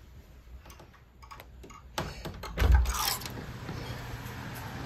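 A wooden door being opened by its metal lever handle: light clicks, then a dull bump and scrape as the door swings open about two and a half seconds in.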